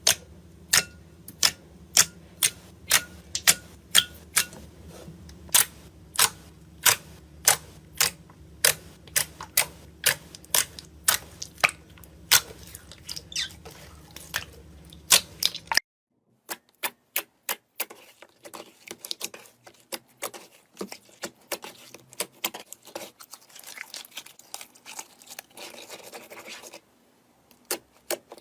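Crisp clicks and pops from a crunchy ASMR material being pressed or cut, about two a second over a low hum. About halfway through, a cut brings faster, softer clicking and crackling.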